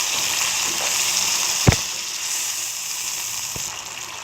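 Mutton karahi gravy sizzling in a wok on high flame while being stirred, a steady hiss. A sharp clack of the spoon against the wok comes about halfway through, with a fainter knock near the end.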